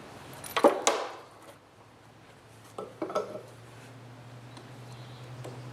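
Steel clanks and clinks from a mower deck's tensioner spring and metal parts being handled. There is a sharp clank about half a second in and a smaller cluster of knocks about three seconds in, over a steady low hum.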